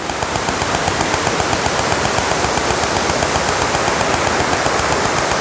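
Steady rush of water from a small waterfall pouring into a rock pool, loud and even throughout.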